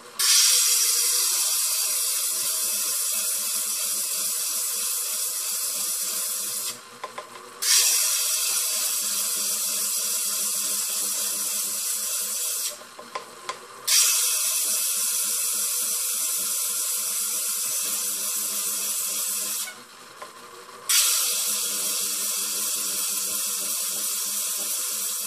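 An agate ring stone being ground against the spinning flat lap of a faceting machine: a steady high hiss in four stretches of about five seconds each. Each stretch starts with a louder touch, and short pauses fall between them as the stone is lifted and turned to the next corner to grind a facet.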